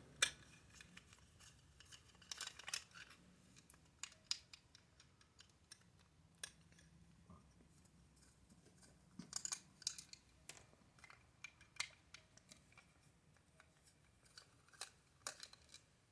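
Small tri-wing security screwdriver turning screws out of a plastic toy's casing: faint, scattered clicks and scrapes of metal bit on plastic and screw, with pauses between.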